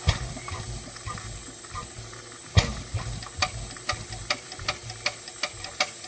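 Lanz semi-diesel (hot-bulb) stationary engine giving a loud knock about two and a half seconds in, then sharp knocks evenly spaced at about two and a half a second over a low hum.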